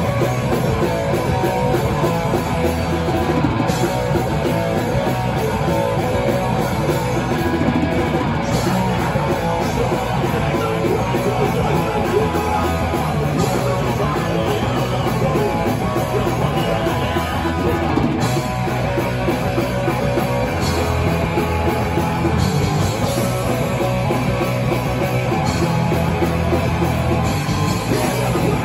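A heavy rock band playing live and loud: distorted electric guitars, bass and a drum kit, with a singer's vocals over them.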